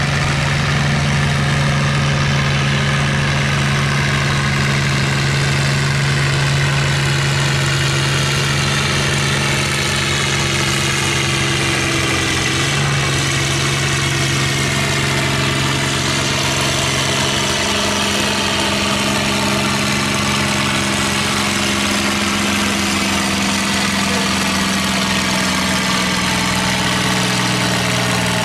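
Red International Harvester farm tractor's diesel engine running steadily under load as it drags a weight-transfer pulling sled. Its pitch holds nearly level, sagging slightly a couple of times.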